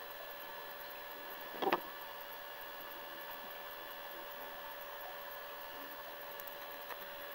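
Steady hum and hiss of aquarium equipment running, with one brief bump about a second and a half in.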